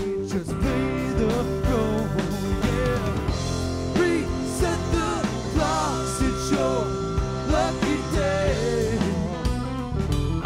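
Live rock band playing: electric guitar, electric bass and drum kit, with a lead line whose notes bend up and down in pitch.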